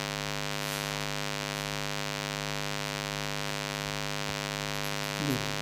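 Steady electrical mains hum with a dense stack of harmonics, unchanging in pitch and level.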